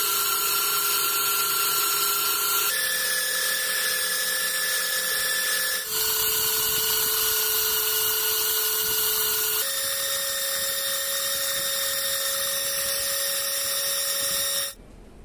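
Handheld belt sander, clamped upside down as a bench grinder, running with a steady whine and hiss as the steel tip of a bayonet blade is ground against the belt to reshape a broken point. The pitch shifts abruptly three times, and the sound stops suddenly near the end.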